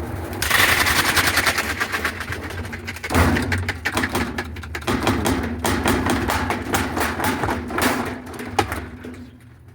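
Whirlpool top-load washing machine test-spinning after a transmission replacement, its tub rattling and knocking rapidly. The clatter starts about half a second in and dies down near the end. The owner blames a worn, warped tub that leaves the drum unbalanced.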